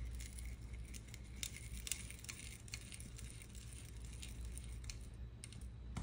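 Plastic rotary coax cable stripper spun around a coax cable, its blades scoring the jacket and braid: faint, scattered clicks and light scraping.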